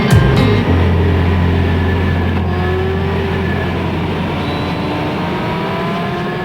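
A musical beat stops within the first second, leaving a car engine running with a slowly rising pitch that gradually fades.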